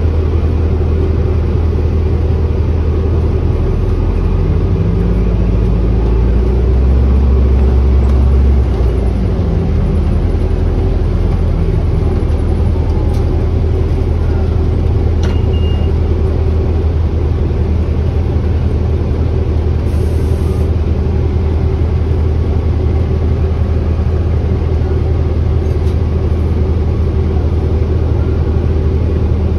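Cabin noise of an Orion OG hybrid-electric city bus under way: a steady low drone from the drivetrain with road rumble. About four seconds in, the drivetrain note rises and grows louder, then settles back about nine seconds in.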